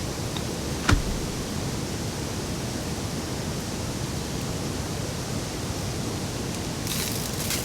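Heavy rain falling steadily, with a single sharp knock about a second in and a short crackling patch near the end.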